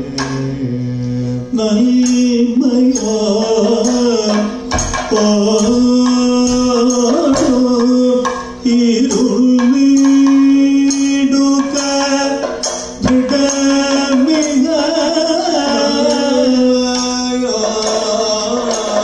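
Kathakali music: a vocalist singing a slow, held melodic line to the beat of drums and small cymbals.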